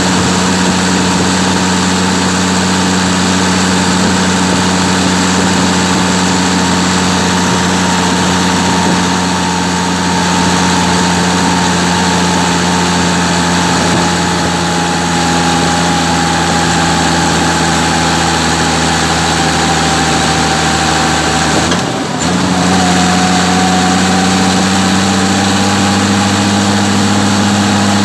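Massey Ferguson 399 tractor's six-cylinder diesel engine running steadily as the tractor drives along. About three quarters of the way through it dips briefly, then picks up again, a little higher in pitch.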